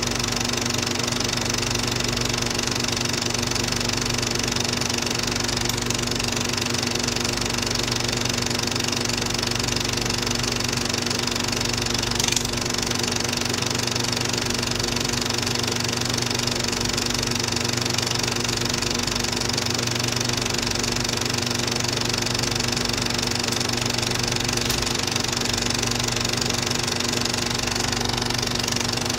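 A film projector running steadily, a constant mechanical hum and whirr that does not change, with a single brief click about twelve seconds in.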